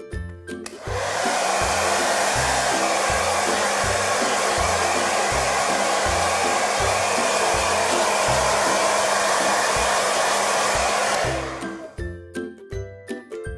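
Hair dryer blowing steadily for about ten seconds. It starts about a second in and cuts off near the end, over background music with a steady beat.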